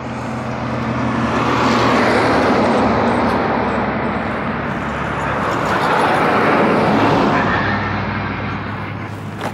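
Road traffic going by on a highway. The passing noise swells about two seconds in and again around six to seven seconds, over a steady low engine hum.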